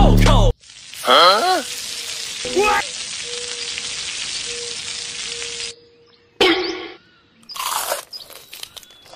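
Food frying in oil on a hot iron griddle, a steady sizzle for about five seconds, then crunchy bites into the crisp fried piece near the end.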